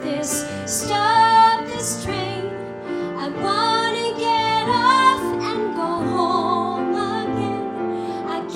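Music: a woman singing a slow, tender song over instrumental accompaniment, holding long sung notes.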